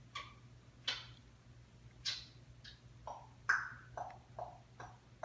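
Parrot giving a series of short chirps and squawks, about ten, coming closer together toward the end.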